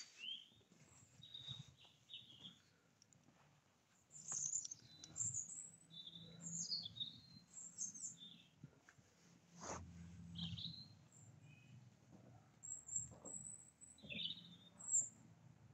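Small birds chirping and twittering, with short calls scattered throughout, over a few faint soft thumps.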